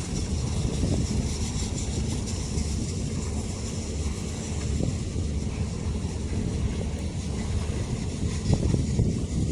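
Steady low rumble of a ro-ro ferry underway, its engines and passage through the water, with wind on the microphone.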